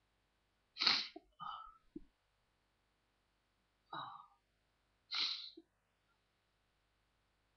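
A person sneezing twice, about four seconds apart, each a sudden loud burst.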